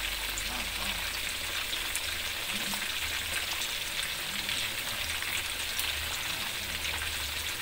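Chicken pieces deep-frying in hot oil in a wok: a steady sizzle with small crackles and pops throughout.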